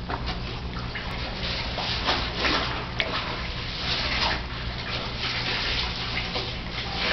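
Poodle puppy eating dry kibble from a plastic bowl: irregular bursts of crunching and chewing, with a sharp click about three seconds in.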